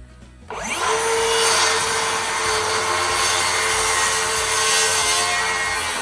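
Electric power saw starting about half a second in, its motor whine rising quickly to a steady pitch, then running and cutting through wood.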